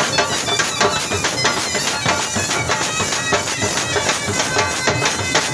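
Punjabi dhamal music: a shrill reed wind instrument plays a sustained melody over a fast, steady drum beat.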